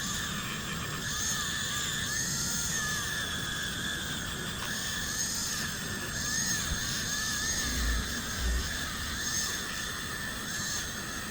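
Small high-speed rotary polishing tool whining steadily, its pitch wavering slightly up and down as it buffs copper plating with white diamond compound.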